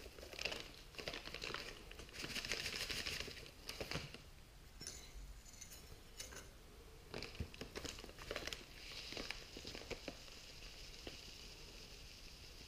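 Crinkling of a plastic packet of loose Thai tea as it is unrolled and handled, with scattered light clicks of a small metal tea infuser set on a plate. A soft steady hiss runs through the last few seconds.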